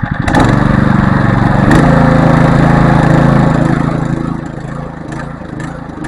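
Small petrol engine, being brought back after restoration, catches and runs fast for about four seconds, then drops to a slower, uneven pulsing run. This is a hard-starting engine that has just fired after repeated failed attempts to start it.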